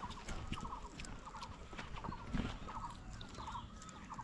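A small animal's call: a short trilled note repeated evenly about every two-thirds of a second, with faint clicks and rustles around it.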